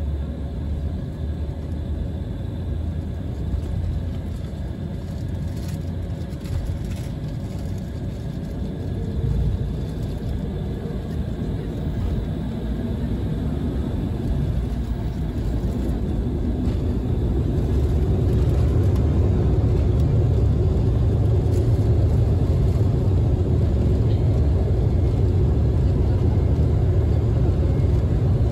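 Embraer E195's General Electric CF34-10E turbofan engines heard inside the cabin: a steady rumble with a faint whine at low power, then spooling up to takeoff thrust from about halfway in, the rumble growing louder and settling at a high, even level as the takeoff roll begins.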